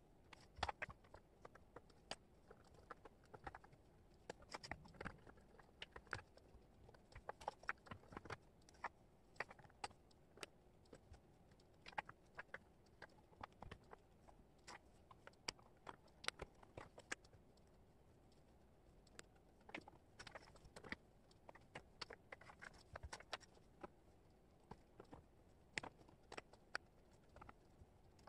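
Wooden jigsaw puzzle pieces clicking and tapping as they are picked up, shuffled and set down on a cork board: many light, irregular clicks, with a short lull in the middle.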